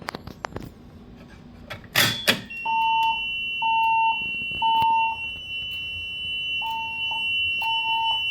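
Siemens Desigo Modular (XLS-V) fire alarm system going into alarm: after a brief loud burst of noise about two seconds in, its speakers sound a beeping tone in the temporal-three evacuation pattern (three beeps, a pause, then three more), over a steady high-pitched tone.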